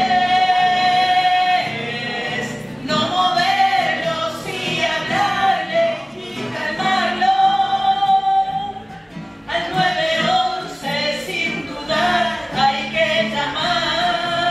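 A song: a voice sings long held notes over instrumental backing.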